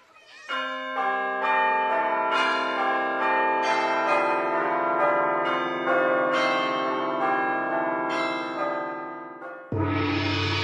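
Church bell tower ringing a peal of several bells, struck about twice a second in changing order. Near the end a gong is struck once and rings on with a deep hum.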